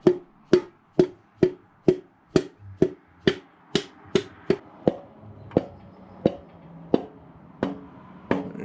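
A piston being tapped down into a small-block Chevy V8's cylinder bore. The sound is a steady run of sharp, wooden-sounding knocks, about two a second, that space out after about five seconds.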